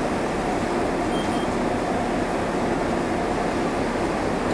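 Isuzu Erga route bus's diesel engine running steadily, heard inside the passenger cabin, with an even low pulsing and a steady mid-range hum from the bus's running gear and air conditioning.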